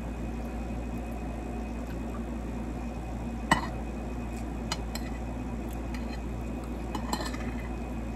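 Metal spoon and fork clinking and scraping against a plate while food is gathered onto the spoon: a few scattered clinks, the sharpest about three and a half seconds in and a small cluster near the end, over a steady low hum.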